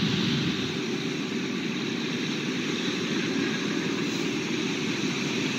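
Ground-level fountain jets splashing onto wet stone paving: a steady rushing, hissing wash of water noise.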